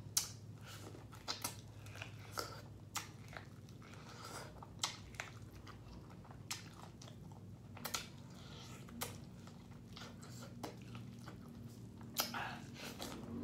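Close-miked biting and chewing of corn on the cob: short crunchy bites and wet mouth clicks at irregular intervals.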